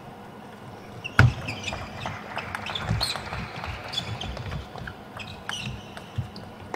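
Table tennis doubles rally: the ball clicking quickly off rackets and table, with players' footfalls and shoes squeaking on the court floor. It opens with a sharp knock about a second in.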